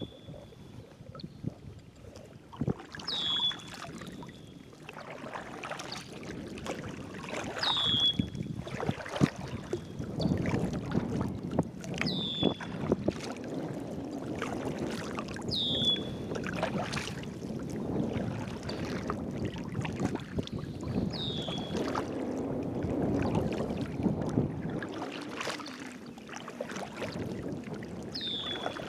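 Water sloshing and knocking against a kayak, with some wind. Over it a bird repeats a short, high, downward-slurred call every few seconds.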